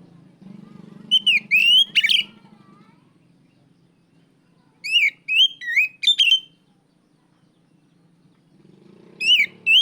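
Oriental magpie-robin (kacer) giving loud whistled call phrases, three times a few seconds apart. Each phrase is a quick run of a few sliding notes that rise and fall. A faint low hum runs underneath.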